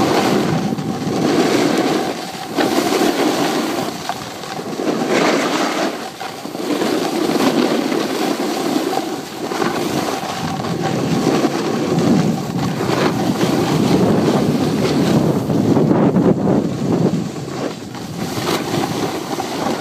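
Wind rushing over a phone's microphone during a downhill ski run, with skis scraping and carving on packed snow, swelling and fading every second or two as the turns go.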